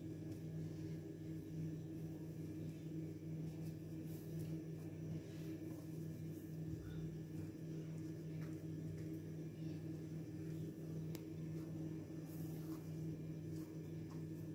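Steady low hum of several tones, with a few faint soft taps as hands press and fold dough on a stone counter.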